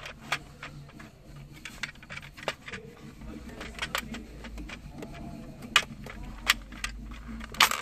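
Hard plastic dashboard parts clicking and knocking as a radio housing is handled and pushed into its seat, with a few sharper clicks in the second half as it goes into place.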